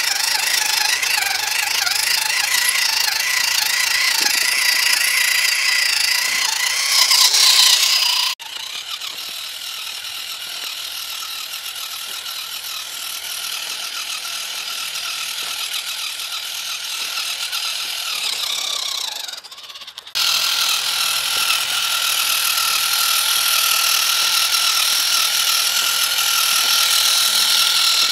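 WPL C24 1/16-scale RC pickup's small electric motor and gearbox whining steadily as it crawls over gravel while carrying a load of rocks in its bed. The whine drops quieter about eight seconds in and comes back louder about two-thirds of the way through.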